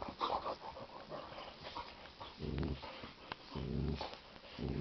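Boxer dogs play-fighting: two low growls, about halfway through and near the end, with short whimpering noises in the first second and a couple of sharp clicks between the growls.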